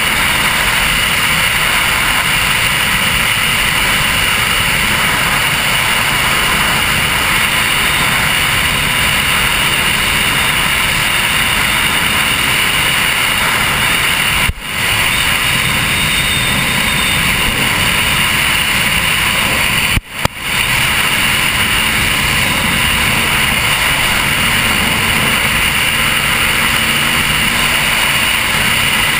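High-performance powerboat running at speed through choppy water: a steady, loud rush of engine noise and wind on the deck-mounted camera. The sound briefly cuts out twice, about halfway and two-thirds of the way through.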